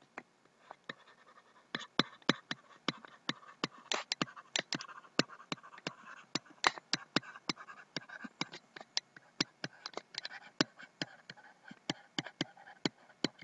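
A stylus tapping and scratching on a tablet while handwriting: an uneven run of sharp ticks, several a second, over a faint scratchy hiss.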